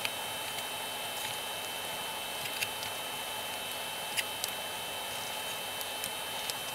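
Soldering new MOSFET legs on the underside of a circuit board: a quiet, steady background hiss with a few faint, sharp ticks as the iron and solder work along the joints.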